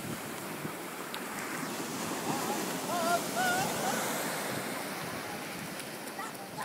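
Ocean surf breaking and washing up the sand, with wind buffeting the microphone. About two to four seconds in, a brief high, wavering cry rises over the waves.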